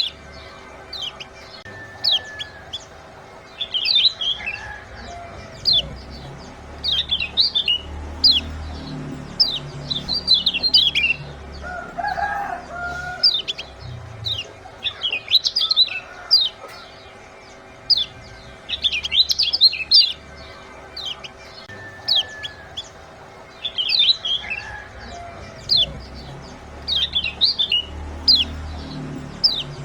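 Kecial kuning white-eyes calling: clusters of short, sharp, high 'ciak' chirps, a new cluster every second or two, repeating in a loop.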